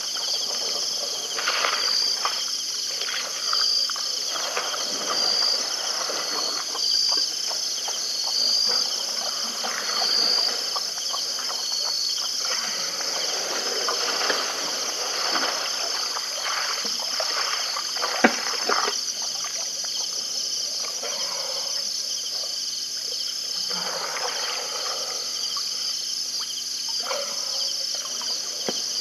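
Night insect chorus: crickets trilling steadily, with a short chirp repeating about once a second. Softer irregular splashy noises come and go underneath, with one sharp click about 18 seconds in.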